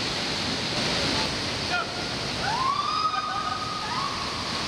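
Steady rush of river water cascading through the canyon. About two and a half seconds in, a high voice calls out, rising and then holding one pitch for about a second and a half.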